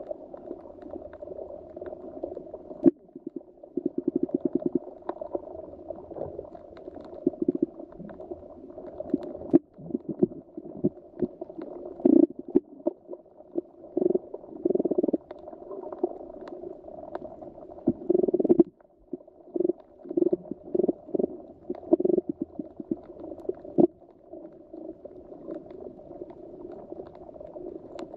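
Muffled underwater bubbling and gurgling in irregular bursts, some of them quick rattling runs of pulses, over a low steady wash.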